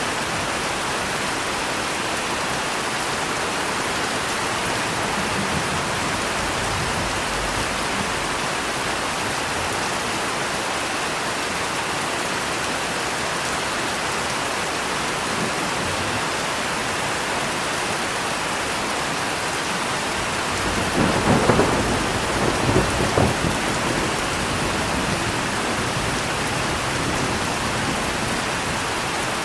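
Steady heavy rain hissing throughout, with a roll of thunder that crackles and rumbles for a few seconds about two-thirds of the way through.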